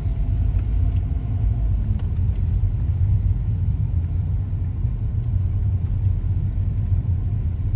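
Steady low rumble of a car on the move, heard from inside the cabin: engine and tyre noise with no change in pace.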